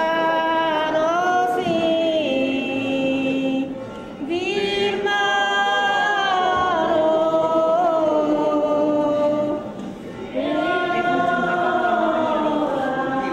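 A group of voices singing a devotional hymn together in long held phrases, with two short breaks for breath about four and ten seconds in.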